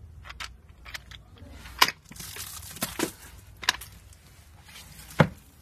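Picture books being handled: a few sharp knocks, the loudest about two seconds in and again near the end, with a brief rustle between them.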